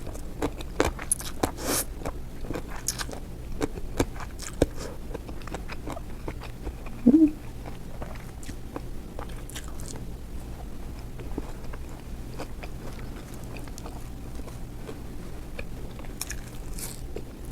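A person biting and chewing crunchy food close to the microphone, with sharp crunches coming thickest in the first few seconds and sparser after.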